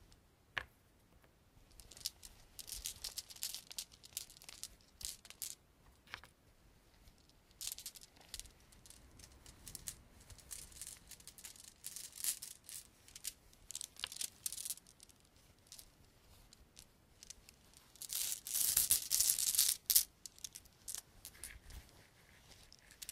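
Close-miked scratching, crinkling and rattling of small objects handled on a desk, in irregular crackly bursts, with a longer, louder stretch of rustling about three-quarters of the way through.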